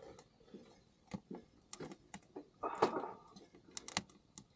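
A small portable metal wood stove being tended with tongs: scattered light clicks and knocks, with a louder clank a little under three seconds in, over the crackle of the burning wood and coal.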